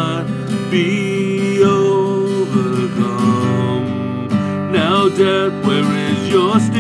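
A man singing a worship song over strummed acoustic guitar.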